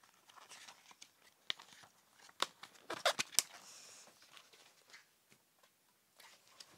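Pages of a paperback graphic novel being turned and handled: faint paper rustles and soft clicks, with a short cluster of louder rustles about three seconds in.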